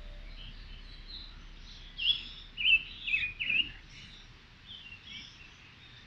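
Birds chirping all around, many short calls overlapping, with a loud run of about four quick chirps about two seconds in.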